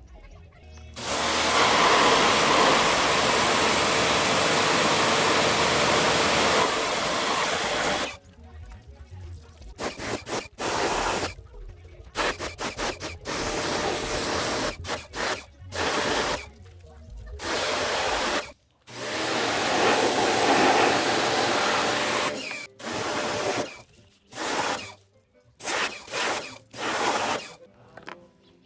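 Water spraying while cleaning a window air conditioner: one long steady spray lasting about seven seconds, then many short on-off bursts as the spray is triggered again and again.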